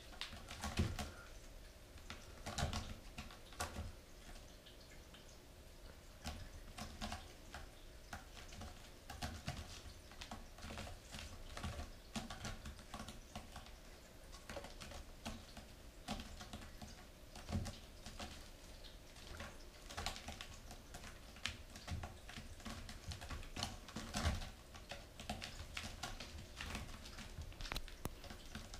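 Bengal kitten clawing at a sisal-rope scratching post and batting at a toy dangling beside it: irregular scratchy clicks and taps, some louder than others.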